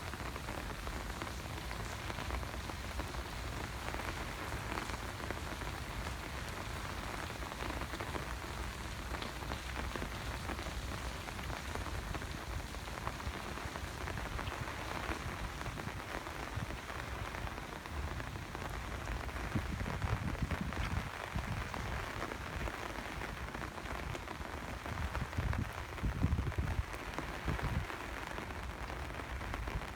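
Steady rain falling and pattering on surfaces, with a few low rumbles in the second half.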